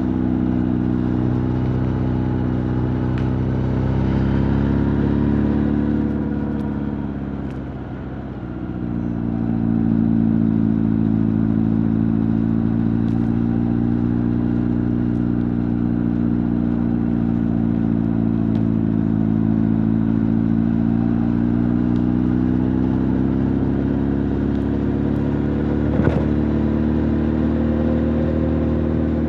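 Honda CB1300 Super Bol d'Or's inline-four engine and exhaust running under way. The note climbs, falls off and quietens for a moment, then the engine pulls again and holds a steady note; a single sharp click sounds near the end.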